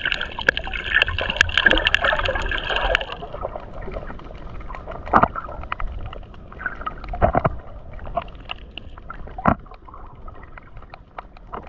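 Underwater coral reef sounds recorded by a submerged camera: a dense crackle of clicks for the first three seconds, then sparser clicking with three louder pops.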